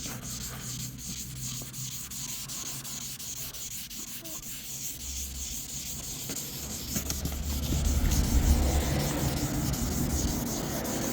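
Wet-sanding car paint with 1500-grit sandpaper: a steady rubbing rasp that grows louder about halfway through. The paper is working over a scratch that 1500 grit does not remove, which marks it as deep paint damage.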